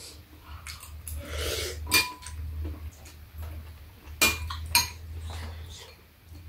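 Metal spoons clinking against ceramic soup bowls during a meal: a sharp ringing clink about two seconds in and two more close together a little past halfway, with softer eating noises between. A steady low hum runs underneath.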